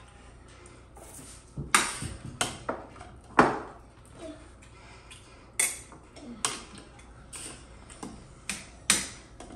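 Utensils clinking and knocking against plates and bowls, about a dozen irregular sharp clinks with short ringing, the loudest near two and three and a half seconds in.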